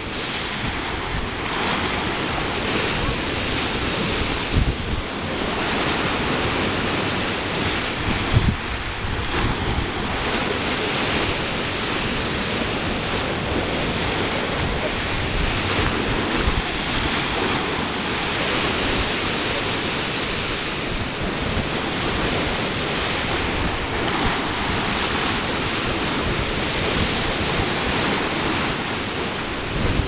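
Choppy sea surf washing and breaking on the shore, a continuous rush of water. Wind buffets the microphone throughout, with a couple of harder gusts about four and eight seconds in.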